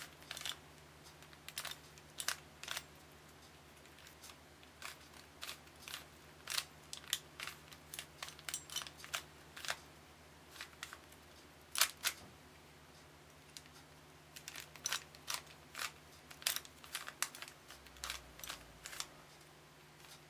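Plastic Rubik's Cube being solved by hand: its layers are turned in quick irregular runs of sharp clicks and clacks, with short pauses between runs.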